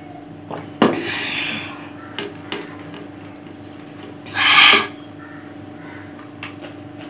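Close-miked eating-show sounds from a woman finishing a drink of water and going back to eating rice with her hand. There is a sharp click about a second in, then a short breathy hiss, a few small clicks, and a louder half-second hiss just after the middle, all over a steady hum.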